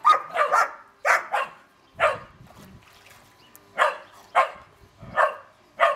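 Dog barking in short, sharp barks: a quick run of several in the first second and a half, then single barks spaced about a second apart.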